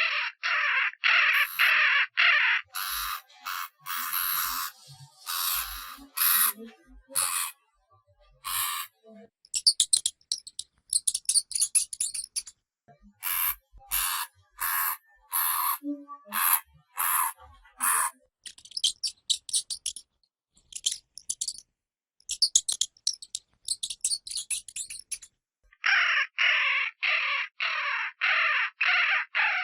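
Hamster squeaking in runs of short, harsh squeaks, several a second, with brief pauses between runs.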